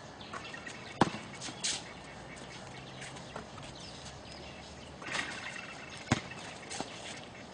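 A basketball thudding against a hard court surface, two sharp thuds about five seconds apart, the first about a second in, with faint smaller knocks and scuffs between them.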